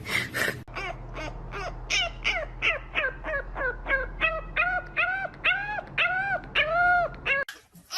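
A dog giving a rapid series of short, high calls, about two or three a second, each rising and then falling in pitch; the calls grow longer and louder before stopping abruptly near the end.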